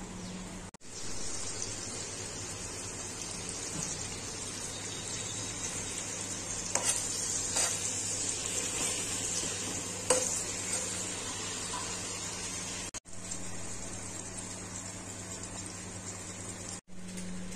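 Onions frying in oil in a stainless-steel pot, a steady sizzle, with a few sharp metal clinks against the pot around the middle.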